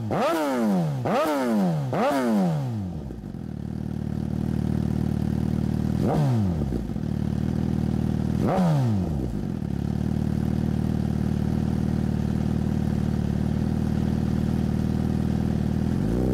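Suzuki GSX-R1000 inline-four revved at standstill through a Racefit aftermarket exhaust. There are three quick throttle blips about a second apart, then a steady idle, broken by two more single blips about six and eight and a half seconds in.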